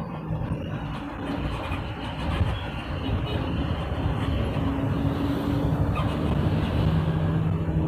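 Steady vehicle engine and road noise on the move: a low rumble with an engine hum, getting a little louder a few seconds in.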